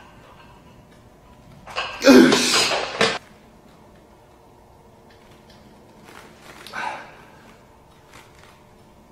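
A man's strained grunt and forceful exhale during a heavy dumbbell rep, loudest about two seconds in and lasting about a second, then a shorter, quieter exhale around six seconds in.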